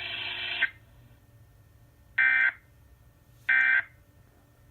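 NOAA Weather Radio EAS broadcast ending: a steady buzzy electronic tone cuts off shortly in, then two short, loud bursts of SAME digital data about a second apart, the end-of-message signal that closes the alert.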